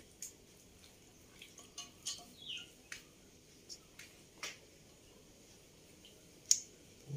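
Quiet, scattered clicks and soft wet sounds of marinated chicken pieces being turned by hand and with a spoon in a steel pot, with one sharper click near the end.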